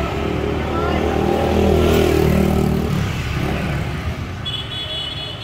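A motor vehicle engine running, swelling to its loudest about two seconds in and then easing off. A short high-pitched tone sounds near the end.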